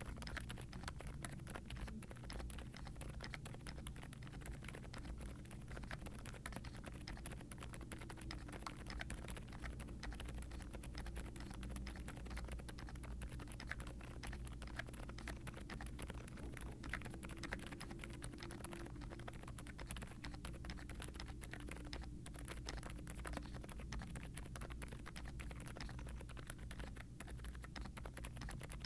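Continuous fast typing on a mechanical keyboard with silent tactile switches (Outemu Silent Lemon V3, damped POM stems with TPU inserts) and doubleshot ABS keycaps, in an aluminium Zoom75 case with a polycarbonate plate and foam. It gives a dense run of soft, muted keystrokes.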